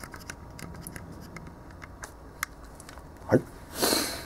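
Small clicks and light metal handling noises from a Leica M3 camera body as its baseplate comes off and the film take-up spool is pulled out, with a short scraping rustle near the end.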